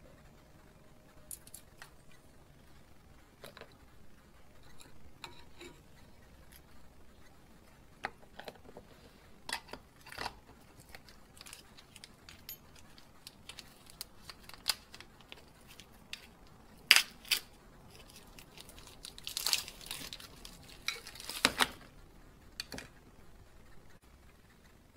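Scattered metallic clicks, clinks and rustling from hand tools and parts being handled at a car's front brake caliper. The loudest moment is a pair of sharp knocks about two-thirds of the way in, followed by a denser run of clatter.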